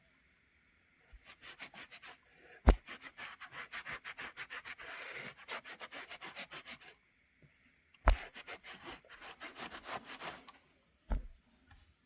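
Hand sewing through quilted fabric: quick, rhythmic scratching strokes of the needle and thread through the cloth, in two runs, broken by a few sharp knocks.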